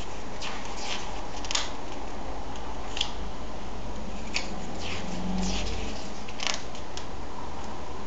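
Glossy comic book pages turned by hand: a series of short, crisp paper flicks and rustles, about nine in all, over a steady background hiss.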